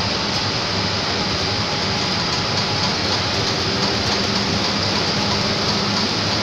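Steady drone and rush of running machinery in a vapour absorption chiller plant, with a low hum under it.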